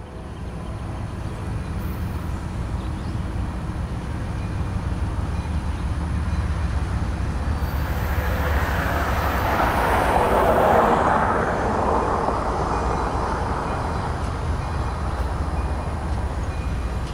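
Diesel locomotive hauling a double-stack container freight train, its engine rumbling steadily as it approaches. A rushing noise swells and fades about halfway through.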